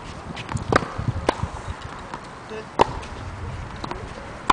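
Tennis balls struck with rackets and bouncing on a hard court: a few sharp, separate knocks a second or more apart, the loudest nearly three seconds in and another at the end.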